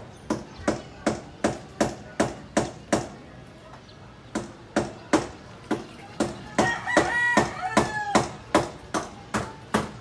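Rhythmic sharp knocks of something being struck, about three a second, with a break of about a second before the middle. A rooster crows once, a long crow lasting over a second, past the middle while the knocking goes on.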